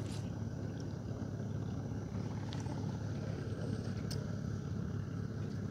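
A small river boat's motor running steadily under way, a continuous low hum.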